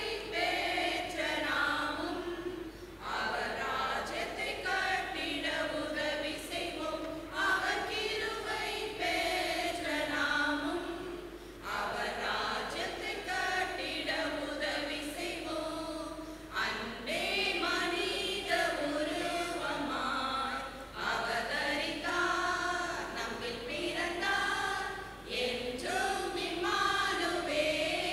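Women's choir singing a Christmas carol in phrases, with short breaths between lines.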